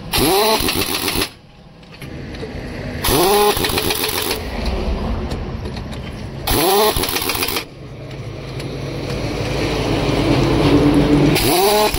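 Pneumatic impact wrench running on truck wheel nuts in four bursts of about a second each. Each burst opens with a rising whine over a loud hiss of air. Between bursts a low steady hum grows louder before the last one.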